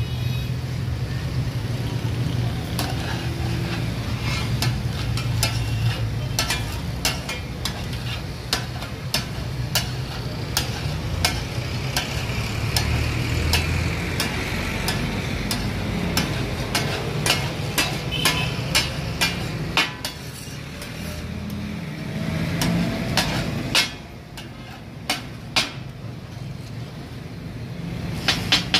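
Brain masala sizzling on a large flat iron griddle, with occasional sharp clicks of steel spatulas against the griddle. Near the end the two spatulas start a fast, even clatter of chopping: the 'taka tak' of the dish.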